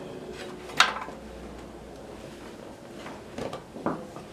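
A sharp metallic clink about a second in, then a few lighter knocks near the end, as the motorcycle's rear wheel is handled and worked loose in the swingarm once the chain is off.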